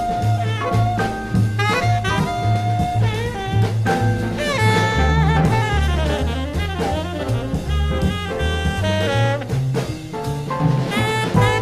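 Background jazz music with a horn melody over bass and drums.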